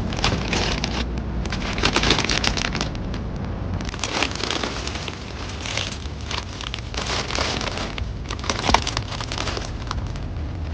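Rain falling: an uneven hiss that swells and eases every second or two, dotted with many small sharp clicks of drops.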